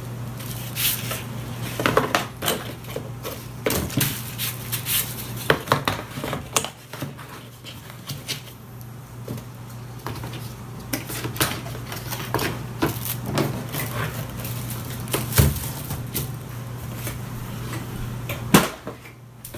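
Cardboard packaging and the keyboard's paper wrapping being handled: irregular rustling, scraping and small knocks as the wrapped keyboard is lifted out of its box and set down, over a steady low hum.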